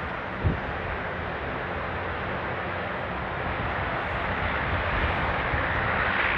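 Turboprop aircraft engines running on the airfield: a steady rushing noise that grows louder over the last couple of seconds. A brief low thump comes about half a second in.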